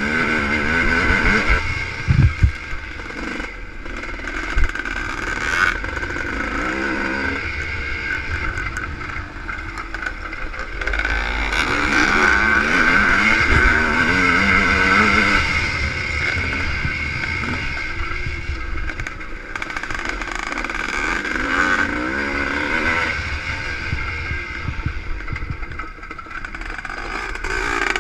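Two-stroke ČZ motocross motorcycle heard on board, its engine revving up and down through the gears as it rides a dirt track. A couple of sharp knocks about two and four and a half seconds in.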